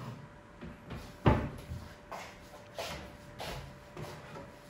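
A series of about six short, sharp knocks and clunks, roughly one every half second to second, the loudest about a second in, over a faint steady hum.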